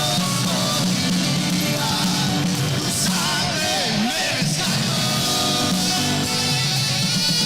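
A band playing Christian worship music, with a voice singing over it.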